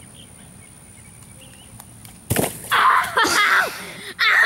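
A short thud as a girl lands on the grass a little after two seconds in, followed by her high-pitched yell. Laughing-like bursts start near the end.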